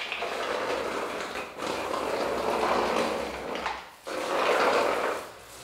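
Paint roller loaded with thick wall paint rolling up and down a wall, making a rolling noise in three long strokes, with short breaks about a second and a half in and about four seconds in.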